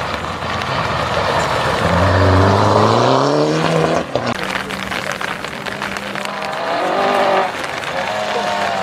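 Rally car accelerating hard past on a wet gravel stage: the engine note climbs steeply, drops sharply about four seconds in, then holds a steadier lower note as it pulls away. Near the end the next rally car's engine is heard rising as it approaches.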